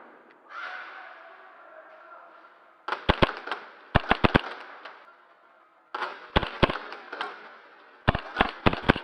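Airsoft electric guns (AEGs) firing in four short strings of two to five sharp, snapping shots, the first about three seconds in and the last near the end.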